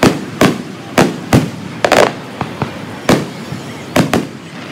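A string of about nine loud, sharp bangs at irregular intervals, each followed by a short echoing tail, with a closer pair of bangs around two seconds in.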